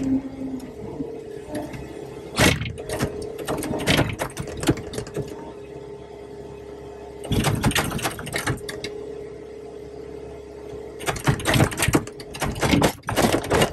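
Caterpillar 259D3 compact track loader's diesel engine running at high revs, heard from the cab as a steady whine, with three stretches of loud scraping and crackling, about two seconds in, midway and near the end, as the root rake pushes through dirt, roots and stump debris.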